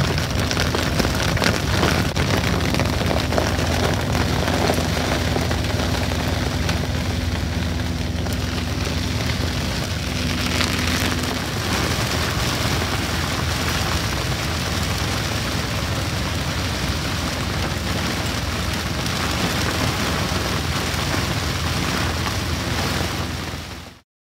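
Heavy rain pelting a sailboat's cockpit and canopy in a thunderstorm: a dense, steady hiss with a low rumble beneath it. It cuts off suddenly near the end.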